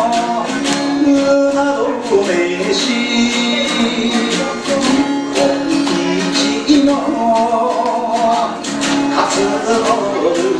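Acoustic guitar strummed in a steady rhythm while a man sings a song over it.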